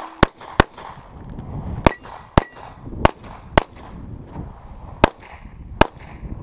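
Glock 21 .45 ACP pistol firing eight shots in four quick pairs, each pair about half a second apart, the shots echoing briefly.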